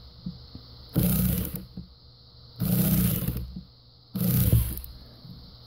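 A man grunting with effort three times, about a second and a half apart, as he strains to turn a heat-seized screw with a flat screwdriver.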